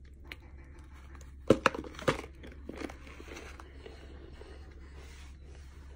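Biting into a chunk of homemade powdery starch: a few sharp crunches about a second and a half in, then softer chewing crunches.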